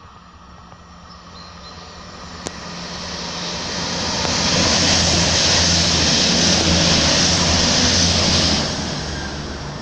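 Diesel multiple-unit regional train approaching and passing under the bridge: a steady low engine hum and rail hiss grow louder, stay at their loudest for about four seconds as it passes below, then drop away quickly near the end.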